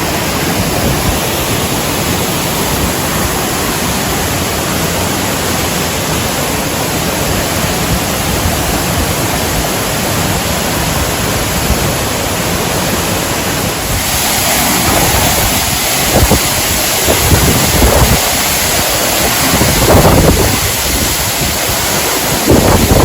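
Waterfall's steady rushing roar, with wind buffeting the microphone. About 14 s in the sound turns brighter and louder, with a few stronger gusts near the end.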